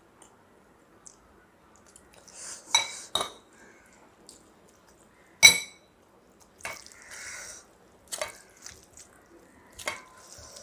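Dishes and cutlery clinking during a meal: a few sharp ringing taps, the loudest about five and a half seconds in, with softer rustling and scraping between them.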